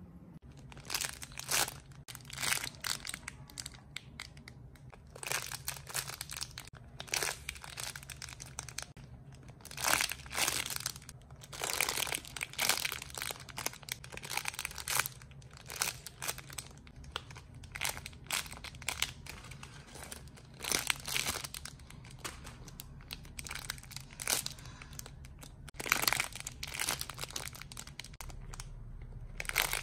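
Irregular bursts of crinkling and rustling as squishy toys and their wrapping are picked up and handled one after another.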